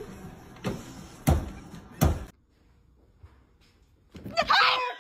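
Three sharp thuds about two thirds of a second apart, then a short, loud, startled scream near the end.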